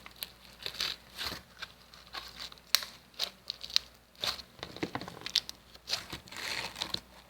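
Stiff slime being squeezed and stretched by hand, making irregular crackling clicks and pops.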